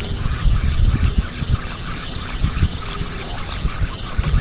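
Fishing reel being cranked, a fast even ticking of its gears, likely reeling in a snagged stick. Wind buffets the microphone with low thumps.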